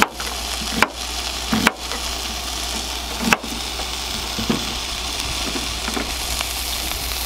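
Burger patties sizzling in a cast iron skillet, a steady hiss. A knife knocks sharply on a plastic cutting board four times in the first few seconds as a red onion is sliced.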